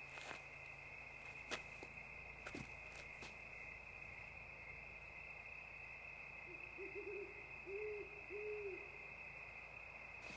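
Faint night ambience: a steady high insect chorus, a few soft clicks in the first few seconds, then an owl hooting three times about two-thirds of the way in.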